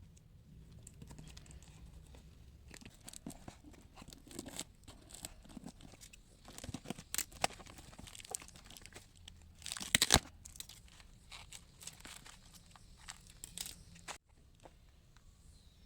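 Packaging being torn open and crinkled by hand, in irregular rustles and crackles with a loud tearing burst about ten seconds in; it stops abruptly near the end.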